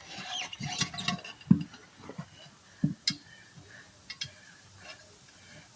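Hand tire-changing tools working a tire off its rim: a string of irregular sharp clicks and knocks, the loudest about one and a half seconds in.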